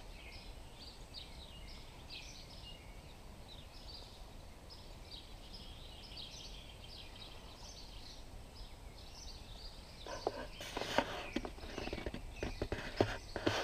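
Small birds chirping in quick, repeated high notes over faint outdoor background noise. From about ten seconds in, rustling and knocking from the camera being handled comes over it.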